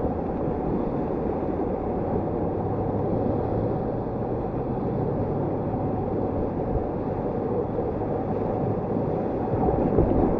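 Steady rush of whitewater from a river rapid.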